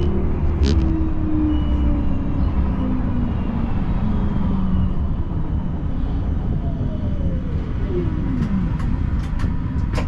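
Siemens Combino tram running with a steady low rumble, its electric drive whine gliding down in pitch as the tram slows, with a few faint ticks near the end.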